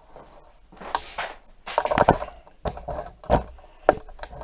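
A rustle about a second in, then four or five sharp knocks and clunks a little over half a second apart, as things are handled and set down on a workbench.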